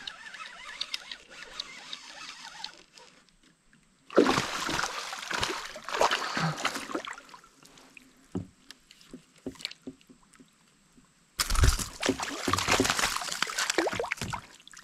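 Water splashing and sloshing beside a kayak in two spells of a few seconds each, with small knocks: a hooked largemouth bass thrashing at the surface as it is landed and handled.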